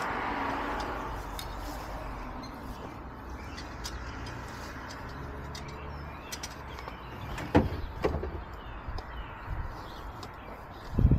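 Hand digging with shovels in a trench: soft scrapes of spades in soil and a couple of sharper shovel strikes about two-thirds of the way through. A low steady hum fades out around halfway, and faint bird chirps sound in the background.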